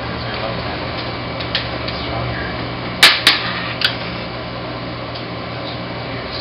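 Three sharp clicks as pliers and an earring are worked at an earlobe during a home ear piercing, two close together about three seconds in and a smaller one half a second later, over a steady low hum.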